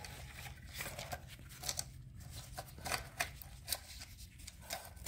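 Faint, irregular small clicks and rustles of handling, over a low steady hum.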